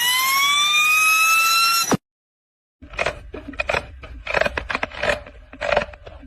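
Car noise samples: a high squeal that rises in pitch and then holds steady for about two seconds before cutting off. After a short gap comes a run of irregular creaks and knocks over a low rumble, of the kind a worn suspension or steering part makes.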